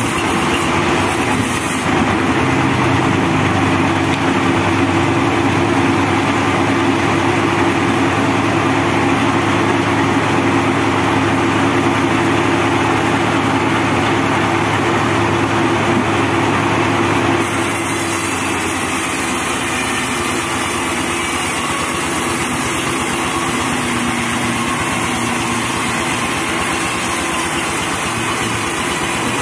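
Homemade band sawmill running steadily while a teak log is pushed through its blade: a constant machine hum with a hiss of sawing over it. The sound changes character about two seconds in and again a little past halfway.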